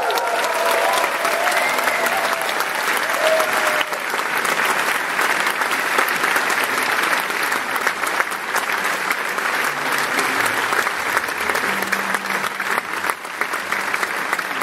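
Concert audience applauding, with a few shouts and whoops in the first few seconds.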